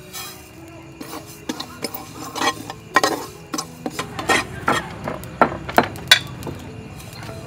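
Sesame seeds poured into a dry metal pan with a short hiss, then a metal spatula scraping and clinking against the pan in quick, uneven strokes as the seeds are stirred to dry-toast over charcoal.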